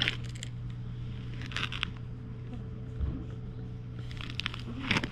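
A hand stroking a cat's fur: a few short rustles near the start, in the middle and near the end, over a steady low hum.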